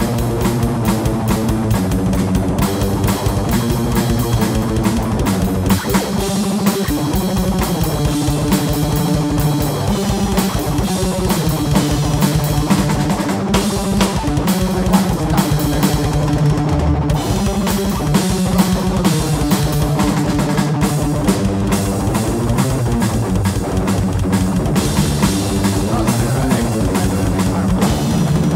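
Metal band playing a rehearsal recording: distorted guitar riffs over rapid, dense drumming on a full drum kit.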